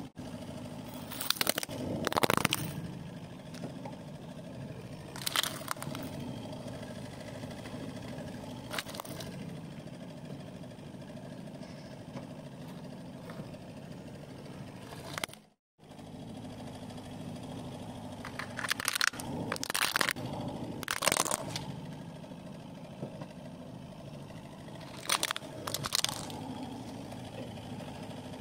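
Hard plastic toys cracking and snapping under a car tyre, a series of sharp cracks in clusters, over the steady hum of the car's idling engine. The sound cuts out briefly about halfway through.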